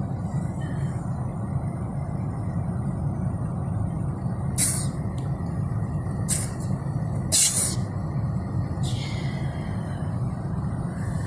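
Steady low rumble of a car heard from inside the cabin, with four short hissing bursts in the second half, the third the loudest.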